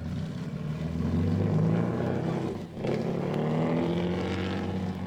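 Mercedes-Benz Grand Prix racing car engine accelerating hard, its pitch rising, dropping sharply on a gear change about halfway through, then rising again.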